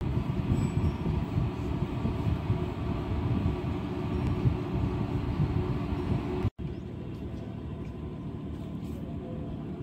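Car ferry's engines running with a steady low drone on the open upper deck, with wind buffeting the microphone. After a brief dropout about six and a half seconds in, the drone goes on quieter and steadier.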